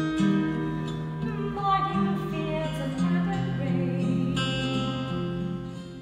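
Music led by acoustic guitar, with a little singing, fading out near the end.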